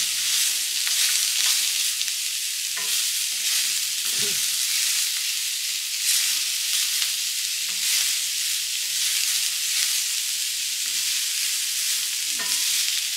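Sliced onions sizzling in a little oil on a hot flat griddle (tawa), with the scrape of a wooden spatula stirring them every second or two.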